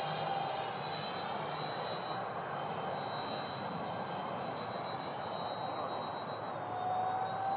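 Electric ducted fans of a Freewing Su-35 radio-control jet running in flight: a steady high whine over a rushing air noise, with a lower tone rising slightly near the end.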